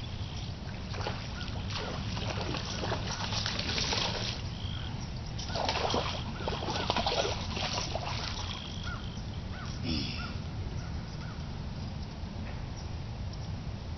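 A hooked bass splashing and thrashing at the water's surface as it is reeled in to the bank, in crackly bursts that are loudest about six to eight seconds in. Birds chirp briefly over it.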